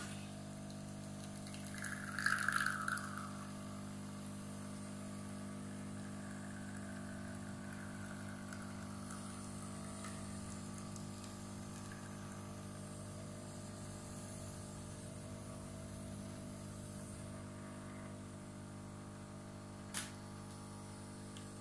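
Cecotec Matic-Ccino 7000 espresso machine brewing an espresso: its pump hums steadily while coffee streams into a glass cup. A brief louder hiss comes about two seconds in, and a single click near the end.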